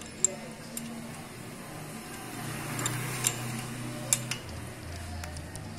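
A handful of sharp, irregularly spaced metal clicks from a 10 mm wrench on a motorcycle valve-adjuster lock nut at the rocker arm, as the nut is tightened to lock in the set valve clearance.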